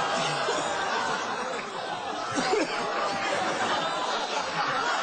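Several people laughing and talking over one another.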